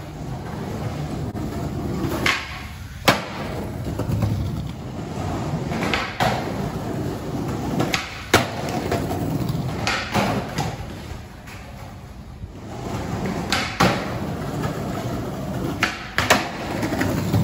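Skateboard wheels rolling over brick paving with a steady rumble, broken about every couple of seconds by sharp cracks of the tail popping and the board and wheels slapping down as the skater jumps a three-stair for kickflips.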